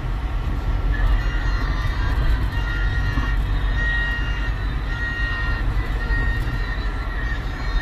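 Steady low rumble of a running motor vehicle, with faint high whining tones that come and go.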